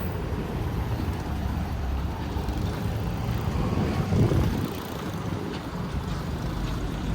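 Street traffic: vehicle engines running, a steady low rumble, with a slight swell about four seconds in.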